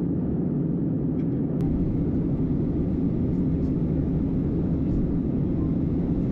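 Steady low drone of a passenger jet airliner.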